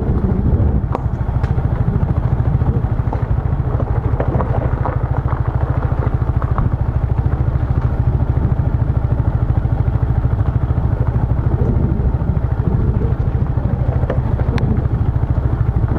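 Motorbike engine running steadily while riding along a road, a low rapid pulsing rumble, with a few sharp clicks of rattle.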